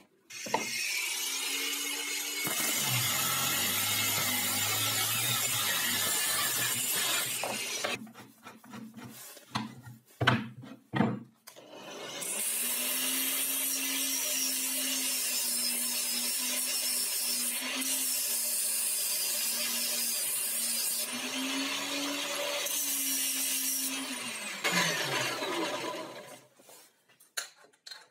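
Angle grinder with a cutting disc cutting through a steel threaded rod: the motor's steady whine under a high, hissing cutting noise, winding down near the end. Before it, a separate power-tool cut runs for several seconds, followed by a few sharp knocks.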